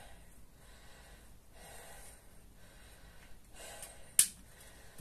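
A man breathing hard as he recovers from a set of kettlebell swings, slow deep breaths about every two seconds. A single sharp click comes a little after four seconds in.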